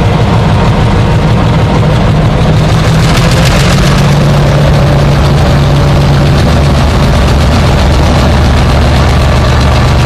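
Electro-Motive Diesel G22 locomotive diesel engines running as the train moves slowly: a loud, steady heavy drone whose engine note shifts about three seconds in.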